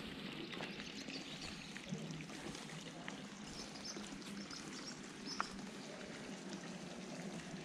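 Steady outdoor background noise of trickling water, with a few short, faint bird chirps.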